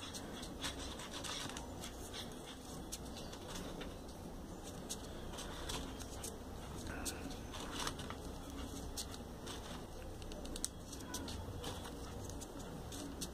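Soft rustling and faint scattered clicks of small folded paper triangles being handled and pushed into a 3D-origami piece, over a low steady background hum.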